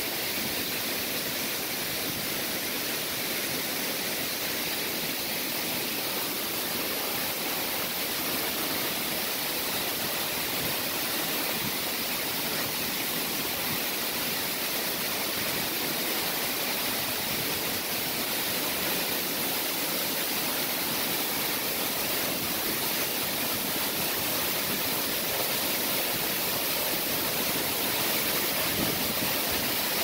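Asenema Waterfall, a tall, narrow fall of water, pouring steadily: an unbroken rushing hiss of falling water.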